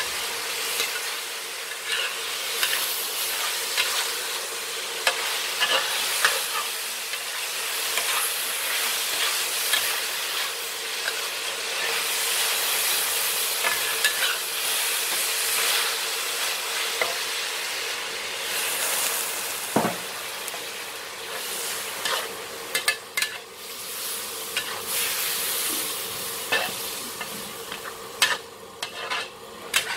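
Chicken pieces sizzling in a black wok while a metal spatula stirs and scrapes them around the pan, a steady frying hiss with frequent sharp scrapes and clicks. In the last third the sizzle drops a little and the spatula strokes come as more separate, sharper scrapes.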